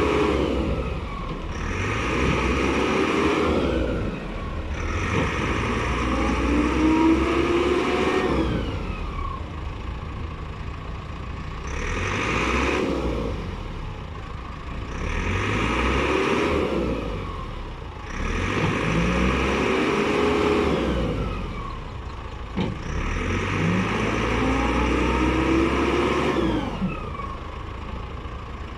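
Caterpillar 426C backhoe loader's diesel engine working under load, revving up and settling back again and again every three to four seconds, its pitch rising and falling with each cycle, as when the hydraulics are being worked.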